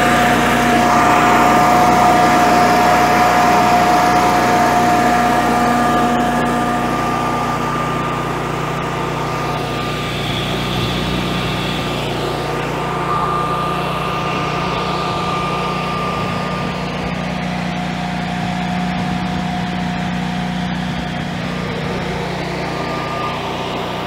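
Generac Guardian home standby generator's engine running steadily with its lid open, a constant engine hum with a steady whine over it. A little louder for the first six seconds or so, then settling.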